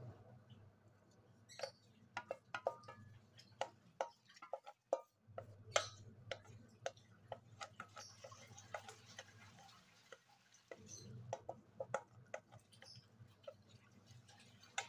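Spatula scraping and tapping against a bowl as thick yogurt is scraped out into a cooking pot: a string of irregular light clicks and knocks. Beneath it runs a low steady hum that drops out twice.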